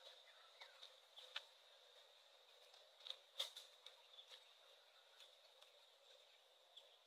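Near silence: faint outdoor background with a steady high whine and a few soft clicks, the loudest about three and a half seconds in.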